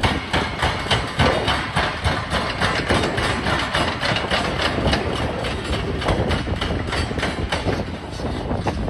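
Demolition excavator working on a concrete building: its diesel engine runs under a rapid, continuous clatter of knocks and crunches as concrete and rubble are broken and fall.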